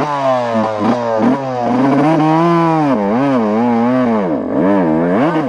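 Yamaha dirt bike engine revving loudly, its pitch rising and falling again and again as the throttle is opened and closed, with a deep dip about four and a half seconds in.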